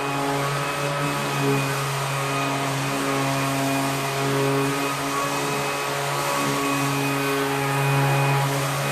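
Ryobi ONE+ 18-volt cordless 5-inch random orbit sander running steadily while sanding a wall: a constant motor hum with a hiss over it.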